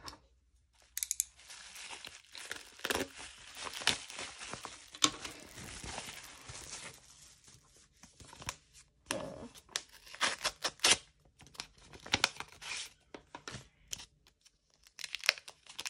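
Bubble-wrap mailers and paper envelopes being handled and torn open by hand: a dense stretch of crinkling and tearing, then scattered sharp crackles near the end.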